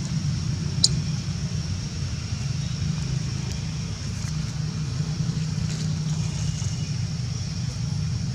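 Steady low outdoor rumble, with a faint high-pitched steady ring above it and one sharp click about a second in.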